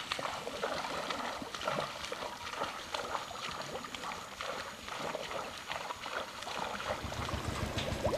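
Kayak paddle strokes dipping and splashing in slow river water, with irregular small splashes and drips. Near the end a steadier rush of running water sets in.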